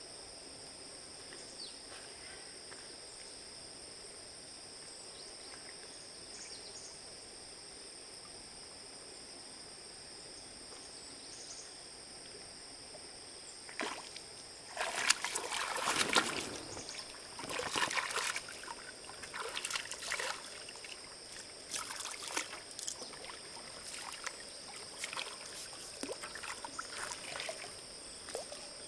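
Water splashing and sloshing in irregular bursts, starting about halfway through, over a steady high-pitched hum.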